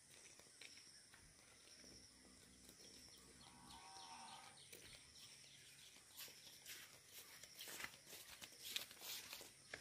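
Quiet outdoor ambience with a faint steady high drone, a short faint animal bleat about four seconds in, and footsteps crunching on a stony dirt track, louder in the last few seconds as children carrying sacks walk past close by.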